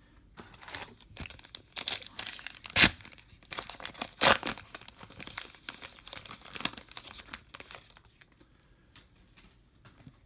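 Trading-card pack wrapper being torn open and crinkled in the hands: a run of crackling rips and rustles with two sharp, loud tears, thinning to occasional faint rustles later on.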